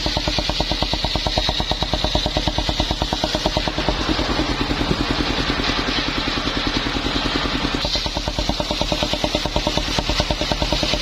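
Engine of a portable circular sawmill running with a fast, steady pulsing beat, its tone shifting for a few seconds partway through.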